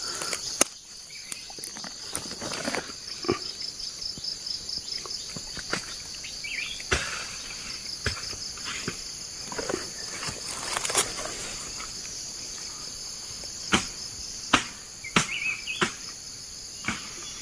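Steady high-pitched insect chorus with a pulsing trill, with scattered crackles and clicks of dry leaves and grass being pushed aside by hand. Two short faint chirps come about a third of the way in and again near the end.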